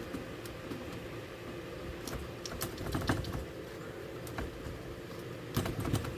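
Scattered light clicks and knocks of an old radio chassis being handled and shifted in its wooden cabinet, a few grouped about two seconds in and another cluster near the end.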